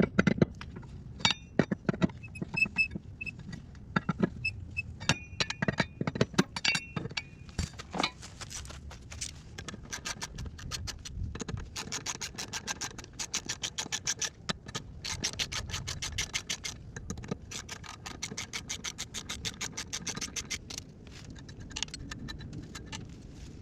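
Hand ratchet with a 17mm socket clicking rapidly as it spins lug bolts off a four-wheeler wheel, with metallic clinks of the socket and bolts in the first several seconds.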